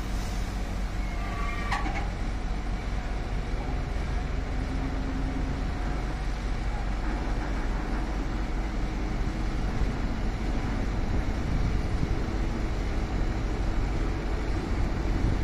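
Heavy truck's diesel engine running steadily with a low rumble, getting a little louder in the second half.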